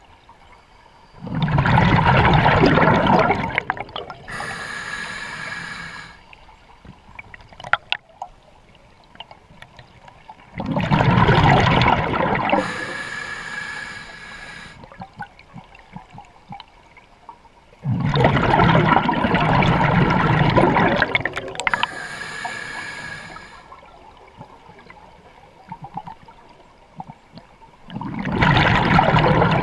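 Scuba diver breathing underwater through an open-circuit regulator. Each breath is a loud rush of exhaust bubbles followed by a quieter, higher hiss of the regulator on the inhale, repeating slowly about every eight to nine seconds. There are four bubble rushes and three inhale hisses.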